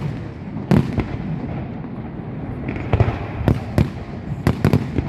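Fireworks going off: a steady rumble and crackle with about eight sharp bangs at uneven intervals, several coming in quick succession near the end.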